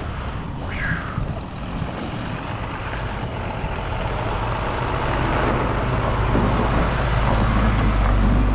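A vehicle engine running steadily with a low drone, getting louder about halfway through.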